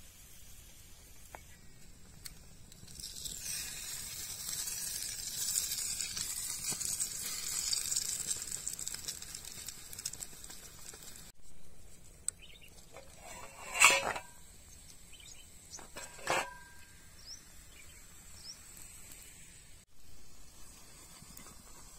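French toast sizzling in oil in a frying pan over a campfire, a high steady hiss that starts a few seconds in and stops abruptly about halfway. Then a few short scrapes and knocks of the spatula against the pan, the loudest two a little past the middle, as the toast is lifted out.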